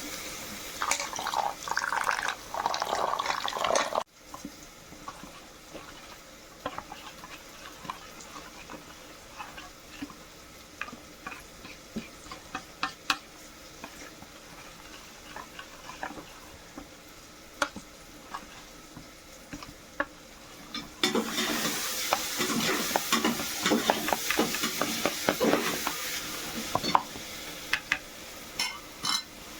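Chicken curry cooking in a pot: a spoon stirring, scraping and clicking against the pot over a sizzle. It is quieter through the middle and louder and busier from about two-thirds of the way in.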